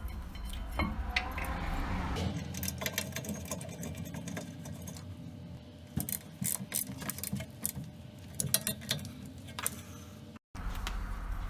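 Irregular metallic clinks and rattles of hand tools and brake parts being handled as a car's brake caliper bracket is refitted.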